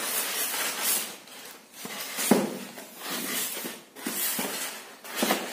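Grey plastic mailer bag rustling and crinkling as a polystyrene foam package is pulled out of it and handled. The noise comes in uneven bursts, with sharp crackles about two seconds in and near the end.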